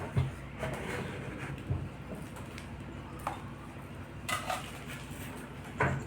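Light, scattered knocks and clinks of tools and parts being handled on a workbench, about eight sharp taps spread irregularly, over a low steady hum.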